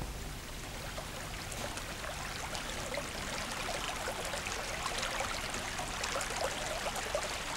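A small stream trickling and babbling steadily, growing gradually a little louder.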